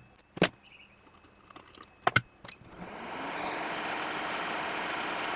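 A couple of sharp clicks, then about three seconds in a hot-air rework station starts blowing, a steady rushing noise that builds up quickly and holds, as hot air is brought to the router board to desolder its flash chip.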